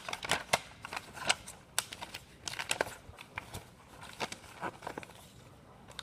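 Paper Lego instruction booklets being handled and leafed through: a run of irregular short paper rustles and clicks.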